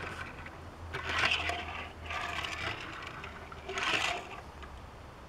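Hot Wheels Flame Stopper die-cast toy fire truck rolling along a plastic track under a pushing hand, in three short runs about one, two and four seconds in.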